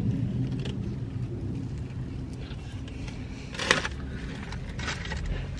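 Steady low hum inside a car, with soft rustling and mouth sounds as a sugared jam donut is bitten and eaten. A single sharp click comes about two thirds of the way in.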